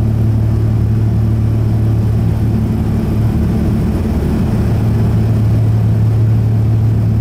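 Cabin noise of a Saab 2000 climbing after take-off: its Rolls-Royce AE 2100 turboprops and propellers give a loud, steady low drone with a constant deep hum, over the rush of air.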